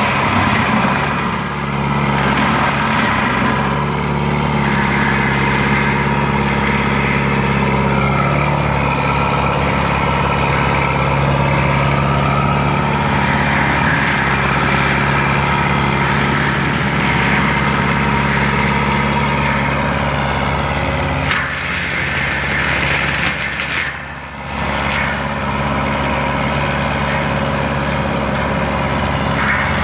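Lamtrac LTR6125 forestry mulcher running steadily, its engine and Denis Cimaf mulching head working. The engine note shifts about eight seconds in, and the sound dips briefly about three-quarters of the way through.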